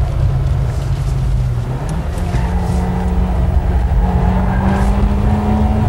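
Nissan Pulsar GTI-R's turbocharged SR20DET four-cylinder engine, heard from inside the cabin while driving hard. The engine note falls a little, steps up about two seconds in, then rises steadily as the car accelerates.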